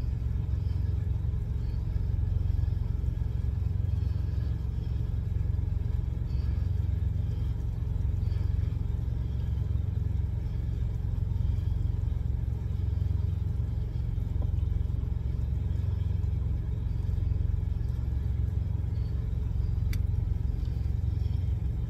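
Steady low rumble of an idling truck engine, heard from inside the cab.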